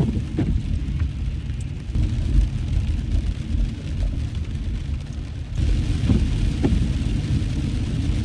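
Inside a car driving through heavy rain: a steady low rumble of road and engine under a hiss of rain and spray. The hiss grows suddenly louder about five and a half seconds in.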